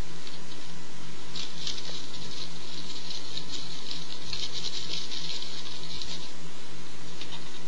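Rolling paper rustling and crackling under the fingers as a joint is rolled, a dense run of fine crinkly ticks that is thickest in the middle. A steady electrical hum runs underneath.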